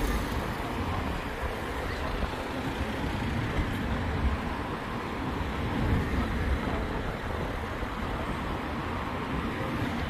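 Road traffic: cars driving past along a town road, a steady low rumble of engines and tyres that swells briefly about halfway through.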